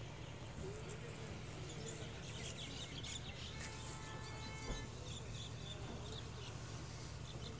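Quiet railway-platform ambience beside a standing passenger train: a steady low hum, with faint bird chirps scattered through and a brief faint tone about halfway through.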